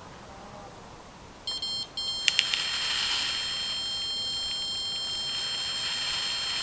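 Electronic carp bite alarm going off on a rod: a few quick high beeps, then a continuous tone from about two seconds in, with a hiss alongside. This is a run, a carp taking the bait and pulling line.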